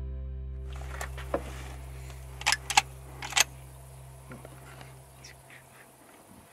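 A rifle's action being worked by hand: a string of sharp metallic clicks, the loudest between about two and a half and three and a half seconds in, over a high buzz of insects. Background music with low held notes fades out underneath over the first five seconds.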